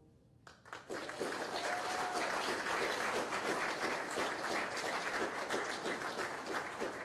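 Audience applause, breaking out about half a second in as a dense patter of many hands clapping.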